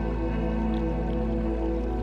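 Ambient new-age background music: sustained, held chords over a deep, steady drone.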